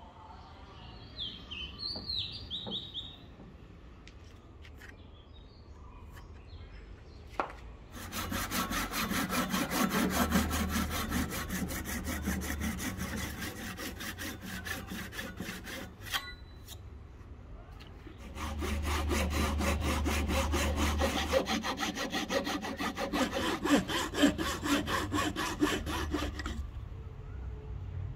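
Small fine-toothed hand saw cutting a slot down into the top end of a hard ebony axe handle, the kerf for the wedge, in quick back-and-forth strokes. The sawing comes in two runs, the first starting about eight seconds in and the second after a pause of about two seconds.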